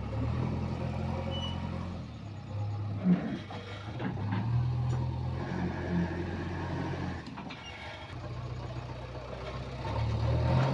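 Heavy diesel machinery engine running under changing load, its note dropping and rising again several times, with one sharp knock about three seconds in.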